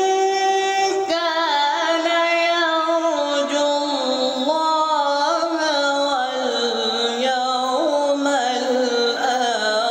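A teenage male qari reciting the Quran in melodic tilawah style: one long held note for about the first second, then a long melismatic run of ornamented turns that steps gradually lower in pitch. His voice has recently changed, and the uploader calls it improving but not yet perfect.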